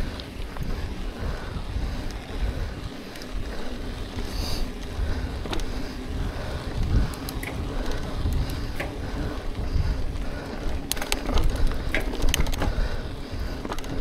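Mountain bike rolling over a dirt trail: a steady low rumble with sharp rattling clicks from the bike, more of them in the last few seconds.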